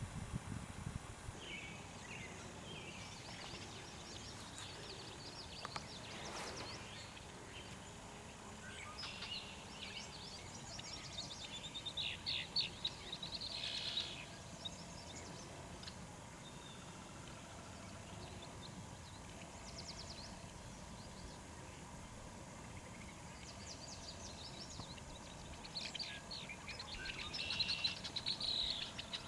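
Songbirds singing and calling, with louder bursts of rapid trilling song about twelve seconds in and again near the end.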